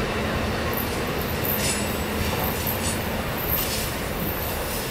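Amtrak passenger train cars rolling past on the rails, a steady rumble with several brief high-pitched wheel squeals about midway, as the last car goes by.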